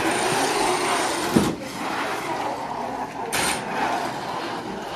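FRC competition robot driving fast across carpet, its electric drive motors and wheels running with a steady whining, scuffing noise. A sharp knock comes about a second and a half in, and a short burst of hiss about three seconds in.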